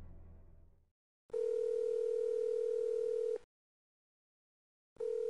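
Telephone ringing tone heard down the line: a steady tone sounds for about two seconds, stops, and starts again near the end, the pattern of a call ringing at the other end before it is answered. The last of a fading music track dies away in the first second.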